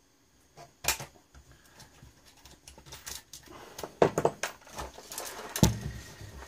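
Small hard parts and tools clicking, knocking and rattling as the front panel of a bench power supply is taken apart by hand, with a scraping rustle through the second half and the sharpest knocks about four and five and a half seconds in.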